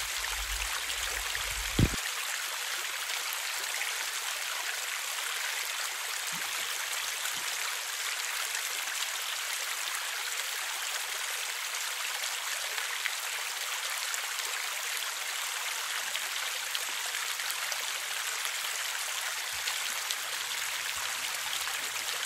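Shallow creek running steadily over rocks, a continuous even rush of water. A brief knock about two seconds in.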